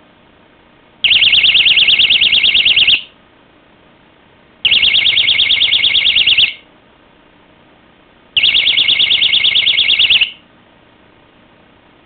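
Battery-powered 100 dB window/door alarm sounding three times, each a loud, high-pitched warbling tone lasting about two seconds, with short pauses between.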